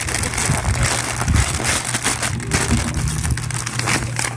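Packaging crinkling and rustling as a parcel is handled and opened, over a steady low hum.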